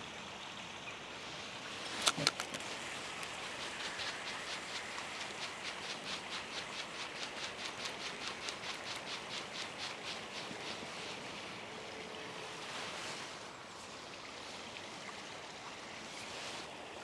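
Fixed-spool fishing reel being wound in: two sharp clicks about two seconds in, then an even ticking of about five a second for about eight seconds as the line is retrieved, over steady outdoor background hiss.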